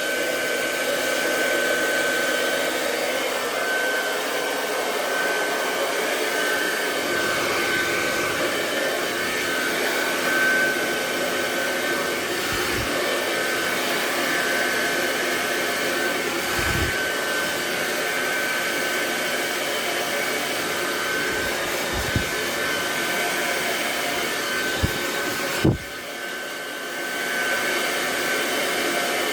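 Hand-held hair dryer running steadily while blow-drying hair, a rushing airflow with a thin high whine. A few faint knocks are heard, and the sound drops briefly about three-quarters of the way through before coming back up.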